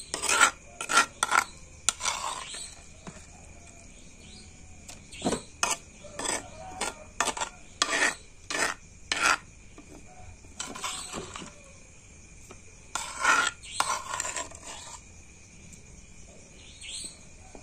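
Kitchen utensils knocking and scraping against dishes, in spells of sharp knocks about two a second mixed with longer scrapes.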